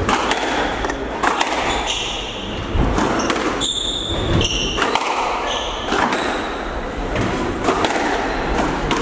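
Squash rally: repeated sharp smacks of the ball off rackets and court walls, with several short high squeaks of shoes on the wooden court floor and a murmur of spectators.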